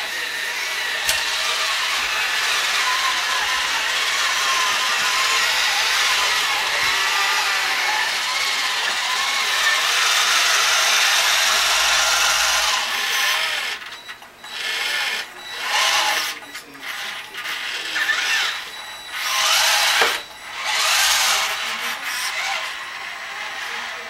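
Small electric motors and gearing of radio-controlled scale model trucks and a cable backhoe whining steadily for about 13 s, then running in short starts and stops.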